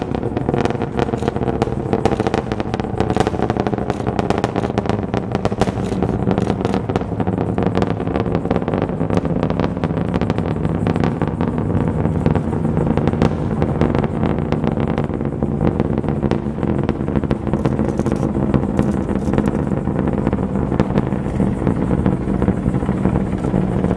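Rocket launch noise from a SpaceX Falcon 9's nine Merlin 1D engines during ascent: a steady, loud rumble with dense crackling.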